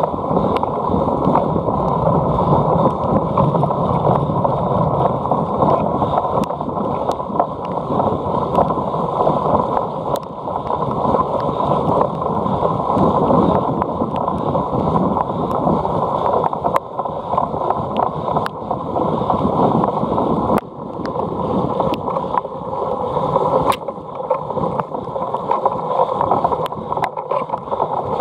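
Wind rushing over the microphone while a cyclocross bike is ridden at race pace, with scattered sharp clicks and rattles from the bike over rough ground.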